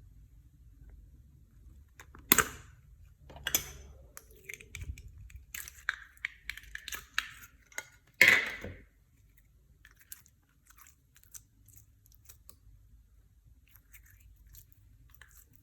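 Clear slime being squished and mixed by hand with added bits, giving crunchy crackles and pops. There are louder crunches about two, three and a half and eight seconds in, a run of crackles between them, and only faint ticks over the last few seconds.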